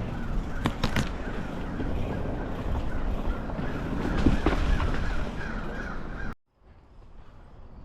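Riding noise from a mountain bike on a trail, with wind rumbling on the microphone and a few sharp clicks about a second in. A bird, likely a crow, calls repeatedly over it. Everything cuts off abruptly about six seconds in, and only faint noise is left.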